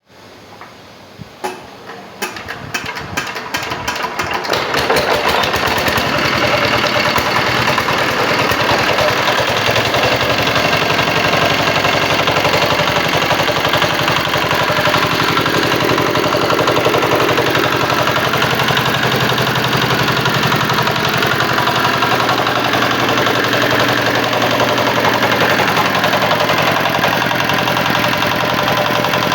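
Jiangfa R175 single-cylinder diesel engine being started: separate firing strokes quicken over the first few seconds, it catches about four to five seconds in, then runs steadily with an even diesel clatter.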